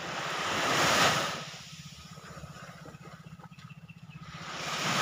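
Small waves washing up onto a sand and pebble beach: one wash swells and fades about a second in, and another builds near the end. A steady low motor hum runs underneath.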